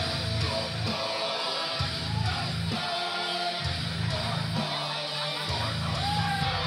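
Rock entrance music with electric guitar and a singing voice, playing for the wrestlers coming to the ring.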